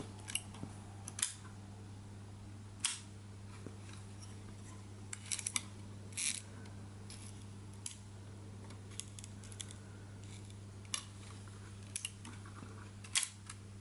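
Agfa Agifold folding camera's leaf shutter being cocked and fired again and again while its speeds are tested, bulb included: about a dozen short, sharp mechanical clicks, spaced unevenly and some coming in quick clusters. The shutter is working, though it sticks and is fired through a stripped cable release.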